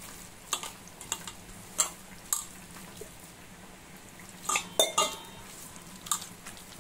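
A hand mixing thick spiced flour batter in a steel bowl, with scattered clicks and clinks against the bowl and a short ringing clink about five seconds in. A low steady hum runs underneath.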